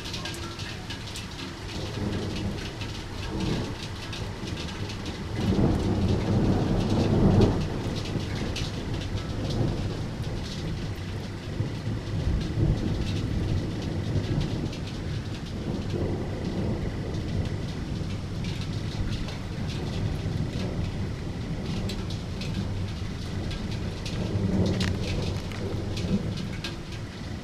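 Thunder rumbling over steady rain. The loudest rumble swells about five to eight seconds in, and a weaker one comes near the end, with the patter of close raindrops throughout.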